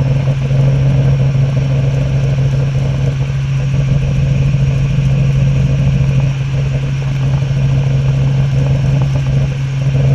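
Robinson R44 helicopter in flight, heard from inside the cabin: the steady, loud drone of its six-cylinder piston engine and rotors, with a strong constant low hum under an even rush of noise.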